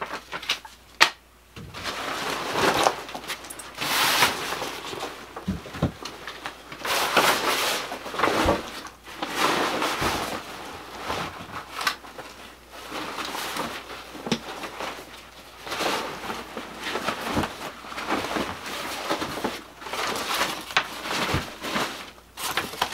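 Irregular rustling and crinkling from a folded paper map and a backpack being handled and packed, with several short knocks of items set down or bumped.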